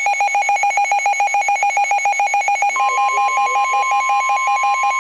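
Emergency alert receiver alarms sounding for a tornado warning: a rapid, pulsing electronic beep, joined about three seconds in by a second, steady higher alert tone, so two alarms sound together.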